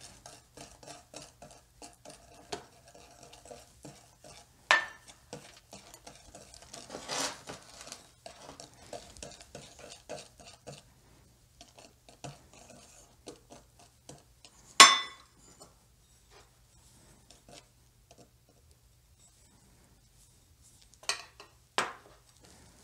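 Wire whisk stirring in a ceramic mixing bowl, a quick run of scraping clicks for about the first half, then slower. A few sharp metallic clinks stand out, the loudest about two-thirds of the way in and two close together near the end, as a stainless steel measuring cup knocks against the bowl while flour is tipped in.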